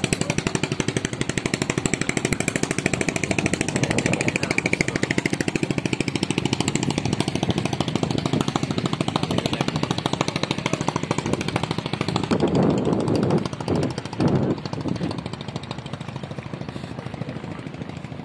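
A small engine running with a rapid, even pulse, with some louder noise from about 12 to 15 seconds in.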